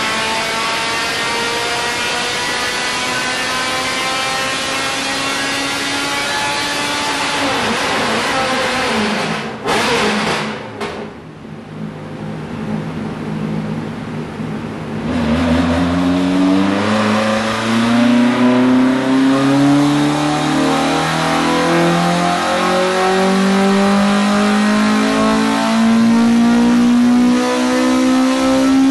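Millington Diamond 2.5-litre four-cylinder race engine in a Ford Escort Mk2 running at full load on a chassis dyno during ECU mapping. It climbs in revs for several seconds, comes off the throttle about a third of the way in with a few sharp cracks and falling revs, then starts a second long pull about halfway that climbs steadily past 7,000 rpm near the end.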